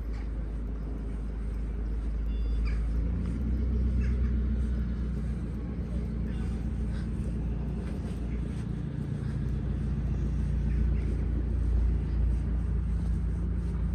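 Low outdoor rumble of wind buffeting the microphone, swelling and dipping, with a few faint short high sounds.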